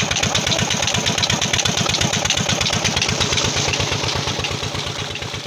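Nayab SD 20 hp single-cylinder diesel engine running steadily, driving a water pump by flat belt, with a rapid, even firing beat. It grows fainter over the last two seconds.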